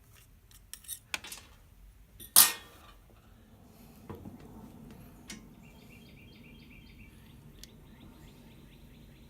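Metal pick clicking and scraping against hard plastic while digging broken agitator-dog fragments out of a washing machine agitator, with one loud clack about two and a half seconds in. Later comes a run of faint, quick scrapes, about four a second.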